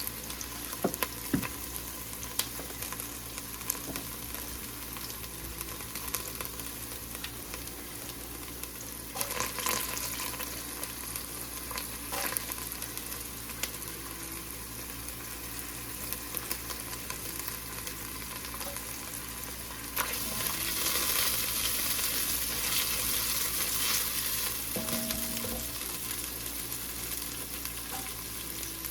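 Chopped onions frying in hot oil in a pan, a steady sizzle with scattered clicks and scrapes of a utensil stirring them. The sizzle grows louder about two-thirds of the way through.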